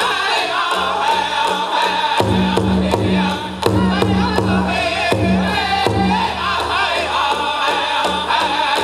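Powwow drum group singing a chicken dance contest song in high, wavering voices over a drum struck in a steady beat.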